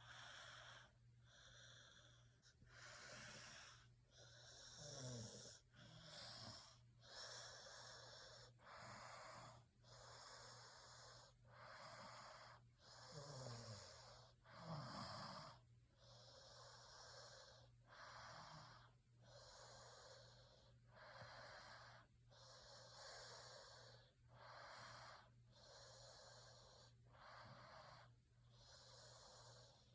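A sleeping person snoring faintly: airy, raspy breaths in and out, one roughly every second, with a few low, falling snorts among them.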